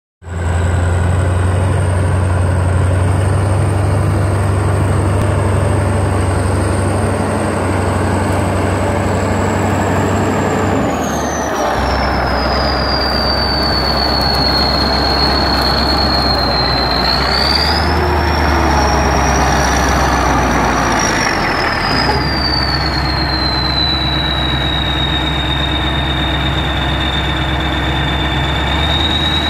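Kirovets articulated tractor's diesel engine running, with a high whistle over it. The engine slows about a third of the way in, picks up briefly past the middle and settles again, and the whistle falls and rises with it.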